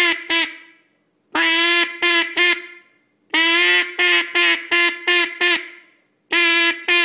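Primos Phat Lady single-reed mallard duck call blown in runs of hen quacks: three runs of three to six notes, each opening with a longer quack followed by shorter, clipped ones, with brief pauses between the runs.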